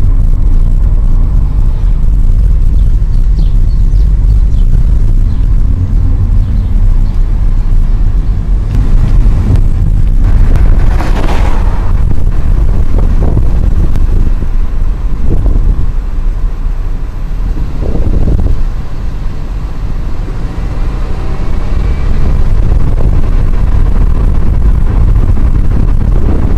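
Low wind buffeting on the microphone and road rumble from a slowly moving car, with a louder rush about eleven seconds in.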